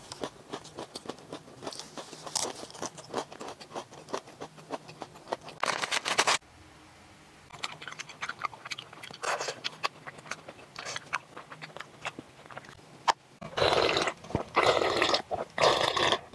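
Close-up eating sounds: crisp crunching and chewing of fried chicken with a crushed-chip coating, followed by bites of a chocolate ice cream bar. A run of loud crunches comes near the end.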